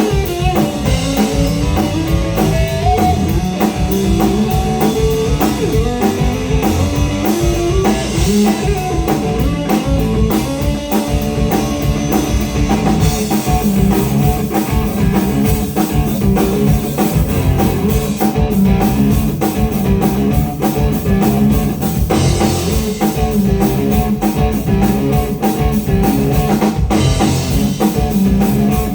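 Live blues-rock band playing an instrumental passage: an electric guitar line moving over drum kit and bass guitar.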